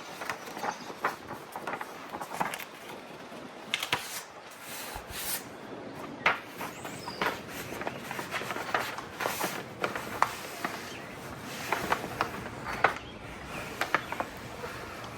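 Irregular light knocks, clicks and scrapes of hands handling and fitting parts, with no steady rhythm.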